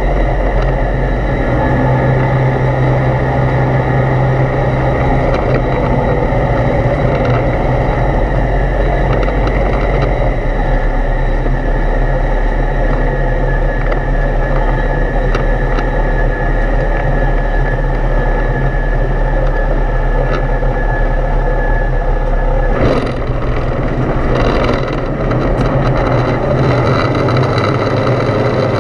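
Foxbat A22LS light aircraft's Rotax 912 engine and propeller droning steadily, heard inside the cockpit, with a change in engine note about ten seconds in as power is adjusted on final approach. Near the end the note drops as power comes off, with a few short knocks as the wheels touch down and roll on the runway.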